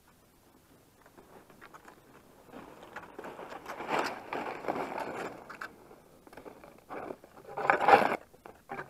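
Cross-country skis scraping and swishing over packed snow, with ski poles striking the snow. It grows louder as the skiers come close and is loudest as one passes right beside the microphone about four seconds in. Another loud scraping burst comes near the end.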